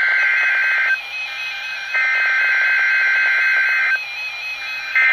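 Emergency Alert System SAME header data bursts on NOAA Weather Radio: harsh, buzzy digital tones that come in bursts about two seconds long with a one-second pause between them. One burst ends about a second in, another runs from two to four seconds, and a third starts near the end. These coded bursts announce the Required Weekly Test and switch on weather alert receivers.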